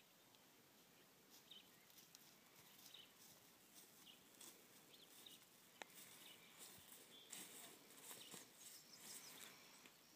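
Near silence: faint outdoor ambience with scattered faint bird chirps and a single small click about six seconds in.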